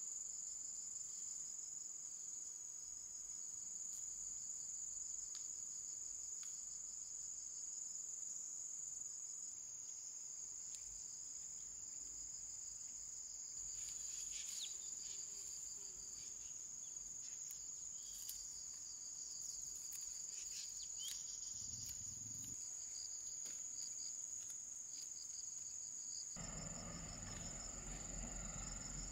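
Insects chirring in a steady, high-pitched chorus, with scattered light clicks through the middle and a lower noise coming in near the end.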